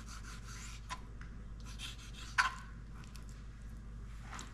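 Thin-bladed knife scraping and slicing along raw lobster tail meat on a wooden cutting board, skinning the tough orange new-shell layer off the meat, in short scratchy strokes. A sharp knock about two and a half seconds in is the loudest sound.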